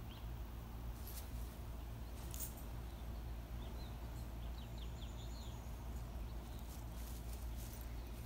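Quiet outdoor yard ambience: a steady low rumble, with a cluster of brief, faint high chirps in the middle and a few soft clicks.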